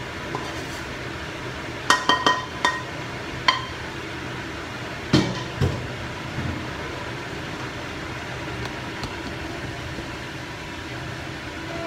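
Utensil knocking and scraping on a metal wok as the stir-fry is emptied into a serving bowl: several sharp, ringing metallic clinks about two seconds in and another at three and a half seconds, then a duller thump a little after five seconds. A steady low hum runs underneath.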